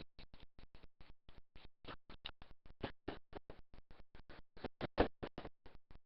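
A rapid, uneven train of short clicks, about seven a second, varying in loudness, with the loudest about five seconds in.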